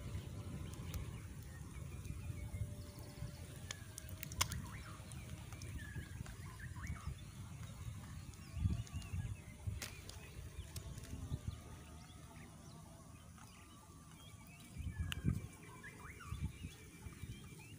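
Birds chirping, with a short trill near the end, over a low outdoor rumble. A few sharp clicks and dull thumps come from a wooden spatula working in a small metal pot.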